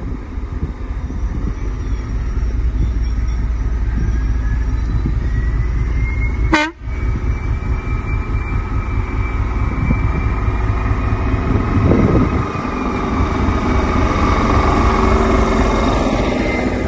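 Train of a Class 73 electro-diesel and coaches rolling slowly along the platform, a low rumble with a long high squeal from the moving train that rises slightly and then holds. A brief cut in the sound about six and a half seconds in.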